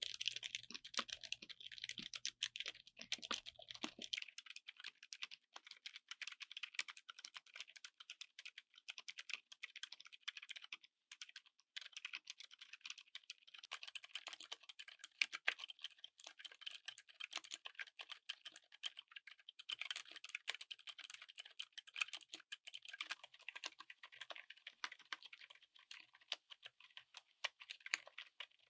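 Continuous fast typing on a mechanical keyboard fitted with silent switches: a dense patter of soft, quiet keystrokes with little low thud, with a short break about eleven seconds in.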